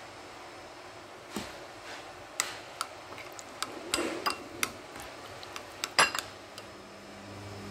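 Metal spoon clinking against a ceramic bowl as it stirs thick yogurt: a string of irregular light clicks, the loudest knock about six seconds in.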